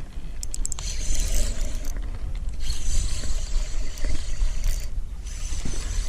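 Fishing reel being cranked with mechanical clicking as a hooked bass is reeled in, over heavy wind buffeting the microphone.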